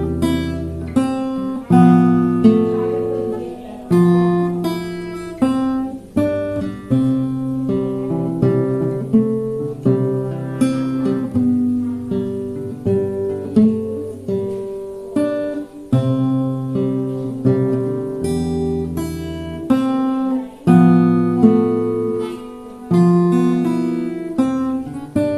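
Solo acoustic guitar playing an instrumental piece: chords plucked and strummed, each left to ring before the next.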